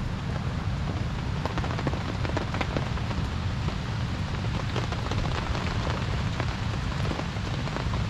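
Steady rain falling, a constant hiss full of small drop ticks, with a low rumble underneath.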